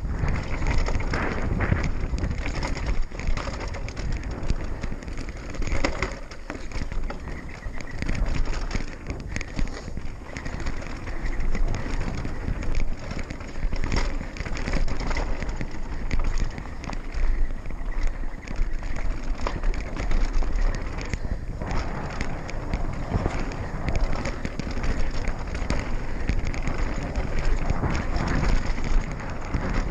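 2016 GT Fury World Cup downhill mountain bike running fast down a dirt and rock trail: tyres crunching and rolling over the ground with a constant clatter of sharp knocks from the bike and chain over the bumps, and wind rumbling on the microphone.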